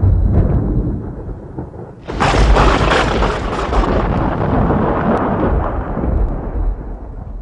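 Thunder: a low rumble fades out, then about two seconds in a sudden loud thunderclap cracks and rolls on, slowly dying away.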